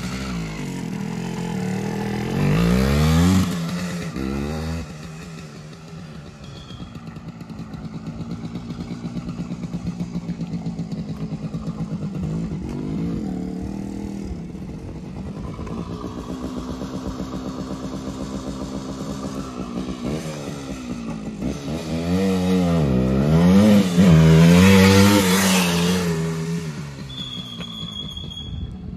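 Harley-Davidson 175 two-stroke single-cylinder dirt bike running with its exhaust baffle removed. It is ridden and revved, the engine note rising and falling again and again. The loudest revving comes a few seconds before the end.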